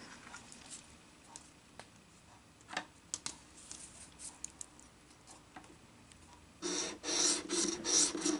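A few light ticks and paper handling as the next scratch-off lottery ticket is picked up. Near the end comes a run of quick rasping strokes: the ticket's coating being scratched off.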